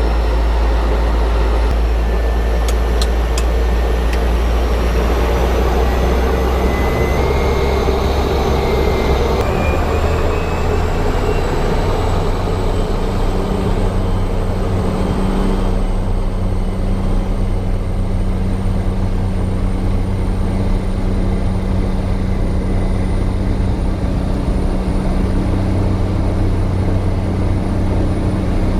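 Cessna 208 Caravan's Pratt & Whitney PT6A turboprop engine and propeller running loud and steady, with a high turbine whine that rises slowly in pitch over the first half as power comes up.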